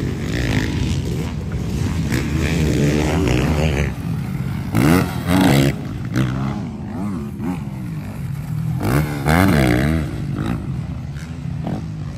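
Motocross bike engines revving up and falling back as riders pass through a corner, the loudest passes about five and nine seconds in.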